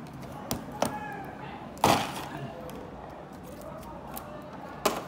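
Clicks and knocks from handling the parts of an opened LED TV on its metal back chassis: a few light clicks in the first second, one loud knock with a short ringing tail about two seconds in, and another sharp knock near the end.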